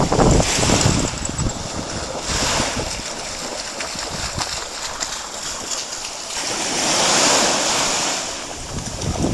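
Small sea waves washing in over a sandy shore, with wind buffeting the microphone in the first second and a dog splashing through the shallows. A wave breaks and hisses up the beach about seven seconds in.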